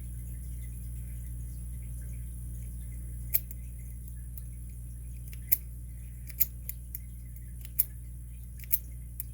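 A lock pick zipped out across the pins of a vintage Master Lock No. 7 Secret Service padlock's 4-pin cylinder, making about six sharp single clicks roughly a second apart, starting about three seconds in.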